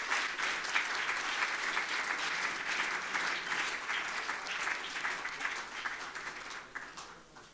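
Audience applauding after a speech, many hands clapping together, thinning out and dying away near the end.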